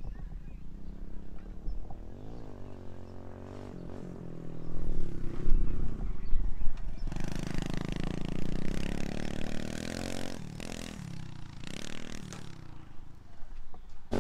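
Dirt bike engine revving up and down as it is ridden over the jumps, its pitch rising and falling with each throttle blip, louder in the middle as the bike comes nearer.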